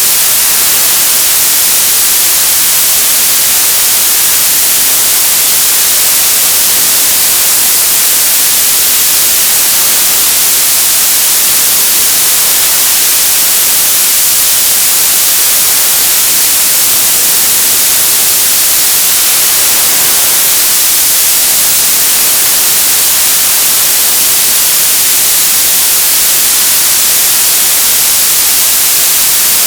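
Television static: a steady, loud hiss of untuned-channel noise, brightest in the treble, with no change in level.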